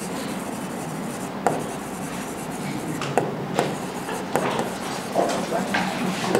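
Writing by hand: a pen or marker scratching steadily across the writing surface, with a few light taps between strokes.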